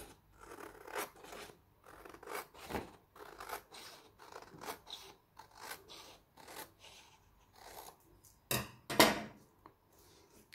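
Scissors cutting through a sheet of printer paper: a run of short, crisp snips, about two or three a second, with the paper rustling. A couple of louder paper-handling sounds come near the end.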